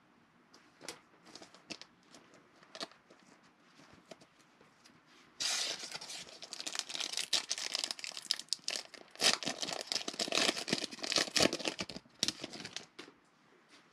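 Faint clicks of trading cards being handled. Then, about five seconds in, a 2020 Panini Mosaic football foil pack crinkles loudly for about seven seconds as it is torn open.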